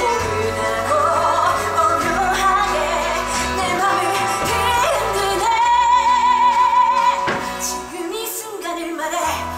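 Musical-theatre song sung live with instrumental accompaniment. About halfway through, a singer holds a long high note with vibrato, and the music softens near the end.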